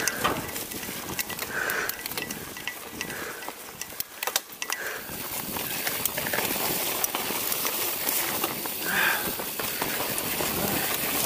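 Giant Trance 29 mountain bike rolling fast down a dirt singletrack: a constant tyre and trail rumble, with many sharp clicks and rattles from the bike over bumps, densest about four seconds in.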